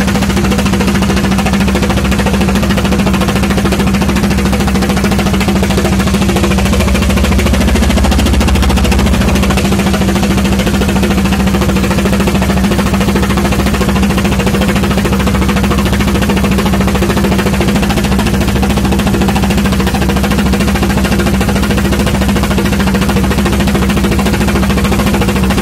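Small wooden fishing boat's engine running steadily under way, loud and unchanging, a constant low drone with no change in speed.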